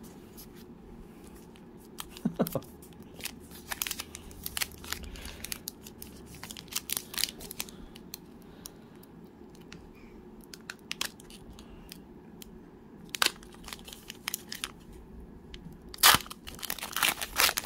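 Trading card pack wrapper crinkling and tearing as a pack is opened, with light clicks of cards being handled and flipped. The loudest bout of crinkling comes near the end.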